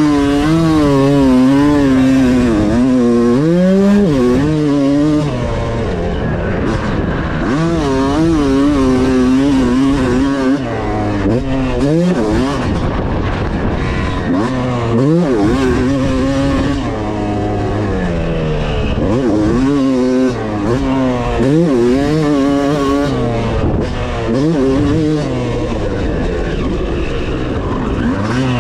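Yamaha YZ250 two-stroke single-cylinder engine (a 2001 motor) revving hard as the dirt bike is ridden. The pitch climbs and drops again and again with throttle and gear changes, with several sharp upward sweeps.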